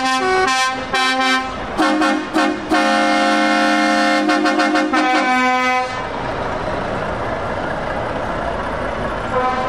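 Truck air horns sounding several notes at once: a string of short toots, then a long blast of about three seconds that cuts off about six seconds in. Engine and road noise follow, and another horn starts near the end.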